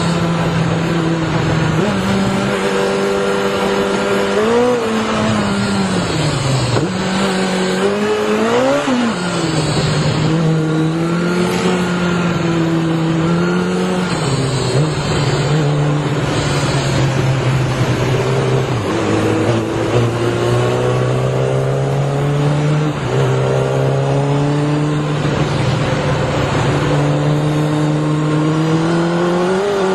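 Kawasaki motorcycle engine heard from the rider's seat under hard riding. The note holds steady for stretches, then swings up and down quickly with the throttle a couple of times. About two-thirds of the way in it drops low and climbs slowly back up. A steady rush of wind and road noise runs underneath.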